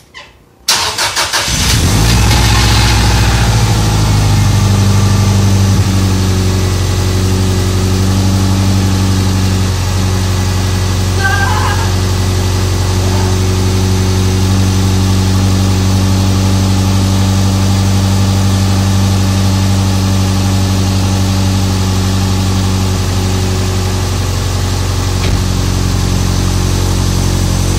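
Engine cranking briefly and catching within about a second, then idling steadily: its first start after a head gasket replacement. The idle eases down slightly about six seconds in.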